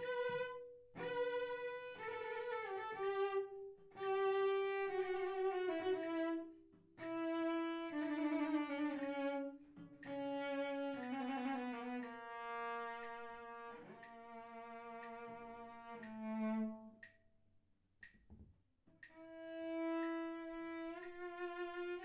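A bowed string instrument playing slow, sustained notes with vibrato, in short phrases broken by brief pauses, with a longer silence near the end before it starts again.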